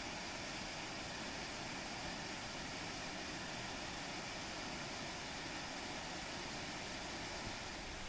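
Waterfall spilling over rock into a plunge pool: a steady, even rush of falling water.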